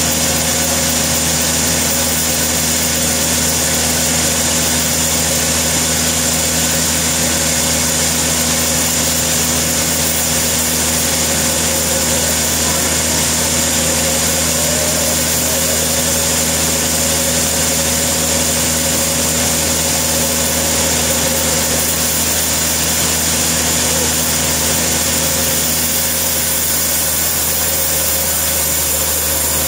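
Sawmill machinery running steadily: a constant mechanical drone with a low hum and a faint wavering whine.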